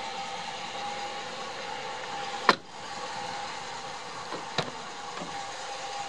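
A pickup truck's crew-cab door shuts with one sharp thump about two and a half seconds in, and a softer latch click follows near the end, over a steady hum from the truck.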